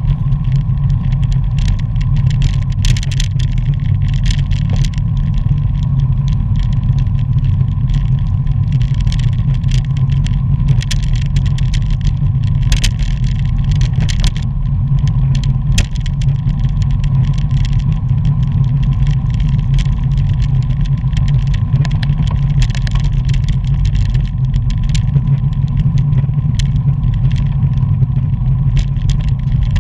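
Wind buffeting the microphone of a camera riding along with a pack of road bikes at racing speed: a loud, steady, low rumble, with scattered light clicks and rattles from the bike and road.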